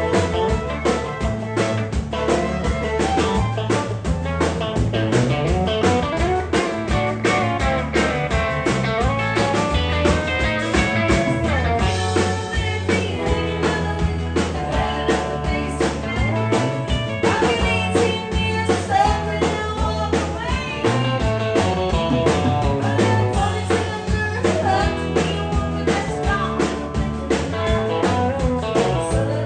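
Live country band playing an instrumental break: fiddle with acoustic guitar, electric guitar and drum kit over a steady beat.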